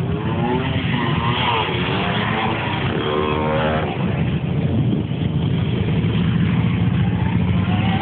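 Many motorcycle engines running together in a steady low rumble, with crowd voices over it, one held call about three seconds in.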